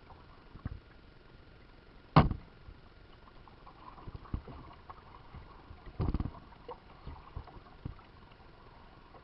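Kayak paddling: faint water sloshing, broken by a handful of sharp knocks, the loudest about two seconds in, with a cluster of knocks around six seconds.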